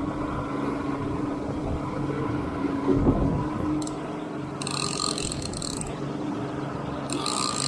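Boat engine running steadily, a constant drone, with a thump about three seconds in and two short bursts of high hiss in the second half.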